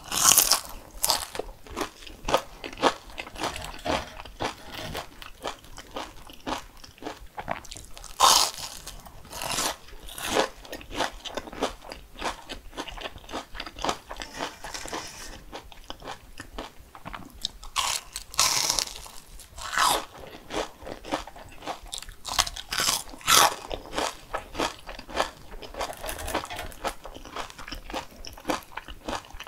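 Close-miked biting and chewing of crisp food: a few loud crunching bites spaced several seconds apart, with steady quieter crunchy chewing in between.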